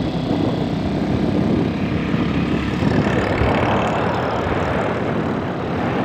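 Steady rumble of a vehicle driving, engine and road noise mixed with wind buffeting the microphone.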